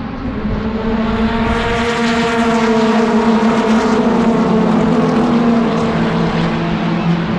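Engines of a pack of NASCAR race vehicles running at speed along the straight, a loud steady drone. It swells about a second and a half in and drops in pitch near the end as the pack pulls away.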